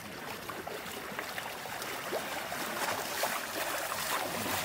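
Water splashing and lapping as a dog paddles through shallow sea water: irregular small splashes over a steady wash, slowly getting louder.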